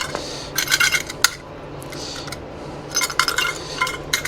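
Light metallic clinks and rattles in a few short clusters, with one sharp click about a second in: a hand-operated oil vacuum pump and tools being handled after the pump was dropped.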